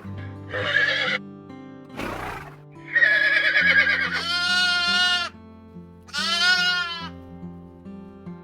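Goats bleating over background music with steady held notes. A few shorter calls come first, then two long, wavering bleats about a second each near the middle and just after.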